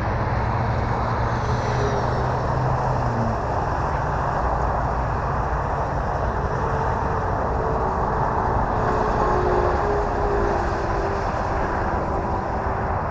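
Battery-electric T-28 Trojan RC model plane's motor and propeller running on takeoff, a faint steady tone that shifts in pitch about three seconds in, under a constant outdoor rush of noise.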